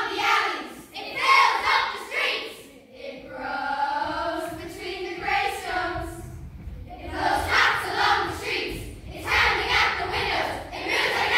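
A large children's choir singing, in loud short phrases with brief pauses between them, and a longer held melodic line in the middle.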